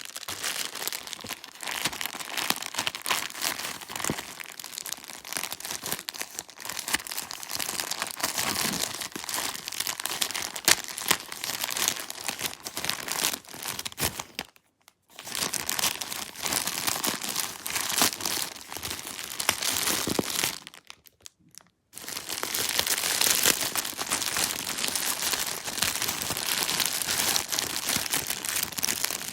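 Packaging being handled and opened by hand: continuous crinkling and rustling with some tearing, stopping briefly twice.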